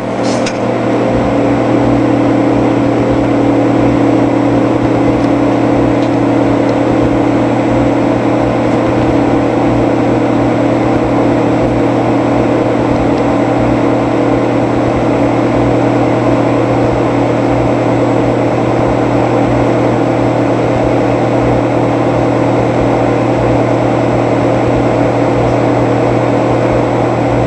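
Microwave oven running a heating cycle with an egg inside: a steady mechanical hum that comes up to full level over the first couple of seconds.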